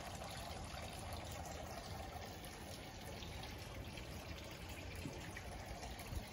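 Tiered garden fountain trickling steadily, water falling from basin to basin.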